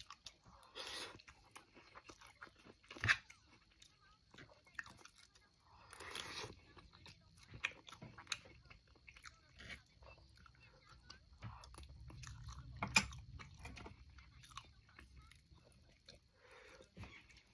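A person chewing and biting food close to the microphone, with wet mouth sounds and scattered crunches; the sharpest crunches come about 3 seconds in and near the 13-second mark.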